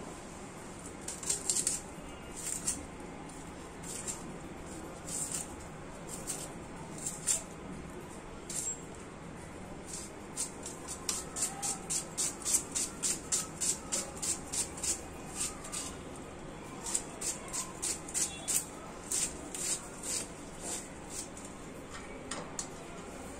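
Knife slicing through small onions: short crisp cuts, scattered at first, then a quick steady run of about three cuts a second through the middle, slowing again near the end.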